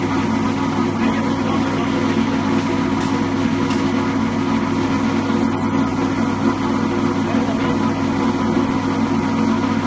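Pillow fiber filling machine running: a steady motor and blower hum as fiber is blown through the filling tube into a pillowcase.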